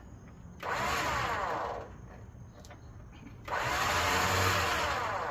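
Harbor Freight 9000 lb electric winch motor running in two bursts, the second longer, spooling the new cable onto the drum.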